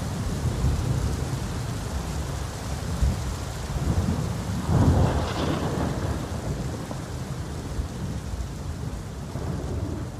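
Heavy pouring rain with thunder rumbling low and steady, and a louder clap of thunder about halfway through. The whole sound slowly fades near the end.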